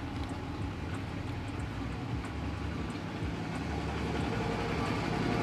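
A motor vehicle's engine rumbling low and steady, growing slowly louder toward the end, as from traffic passing on the road.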